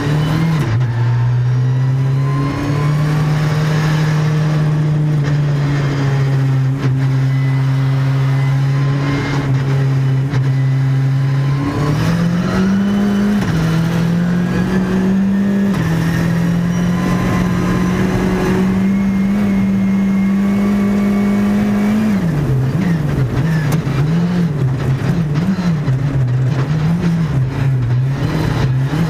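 Škoda Fabia R5 Evo rally car's turbocharged 1.6-litre four-cylinder engine at speed, heard from inside the cabin. The revs hold steady, climb in a few steps about twelve seconds in, and for the last seven seconds rise and fall rapidly over and over.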